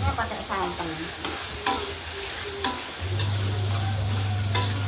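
Metal spatula stirring and scraping a thick spiced chili-paste mixture with potatoes and meatballs in a steel wok, with irregular scrapes and knocks of metal on metal over a frying sizzle. A steady low hum drops out for about the first three seconds and then comes back.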